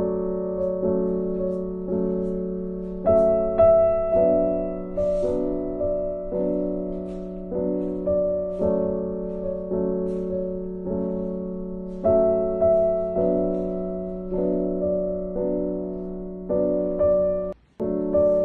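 Background music: a gentle piano melody with notes struck about every half second and sustained chords, with a brief break near the end.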